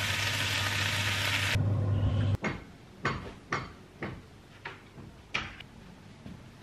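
Food sizzling in a hot frying pan, which stops about one and a half seconds in. Then come about half a dozen separate light knocks and clicks, roughly one every half second.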